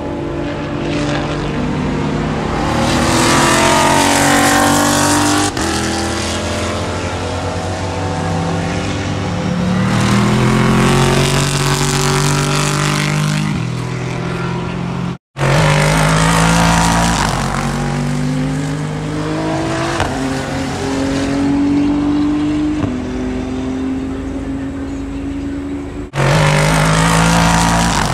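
Car engine accelerating hard through the gears, its pitch climbing and dropping back at each shift, over and over. The sound breaks off sharply a few times, once dropping out completely for a moment about halfway through.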